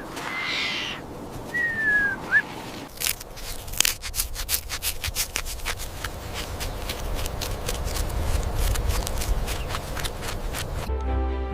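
A short whistled call and a falling whistled glide, then a long stretch of irregular crackling and rustling clicks over a low rumble. Soft music comes in near the end.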